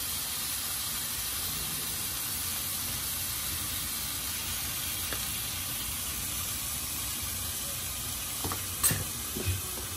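Raw chicken pieces sizzling steadily in hot oil in a frying pan. There are two light knocks near the end.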